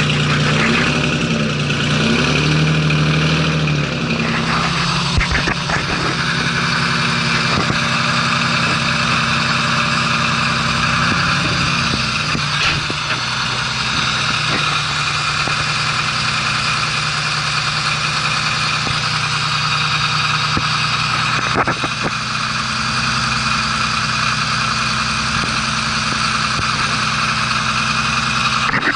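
Old truck's engine running just after a cold start: revved twice in the first few seconds, the pitch rising and falling, then settling into a steady idle.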